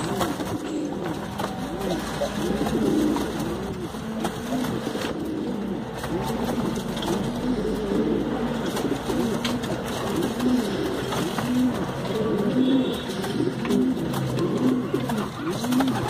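Domestic pigeon cock cooing over and over in courtship display, a run of low coos that rise and fall in pitch.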